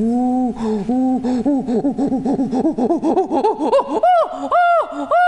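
A woman imitating a chimpanzee pant-hoot greeting: low hoots that quicken and climb in pitch, then break about four seconds in into high, loud arching calls at the climax.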